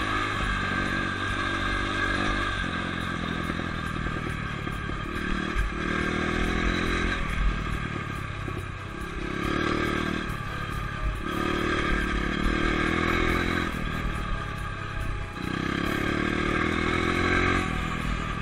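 Dirt bike engine running under way, its pitch rising and dropping back several times as the throttle is opened and eased off.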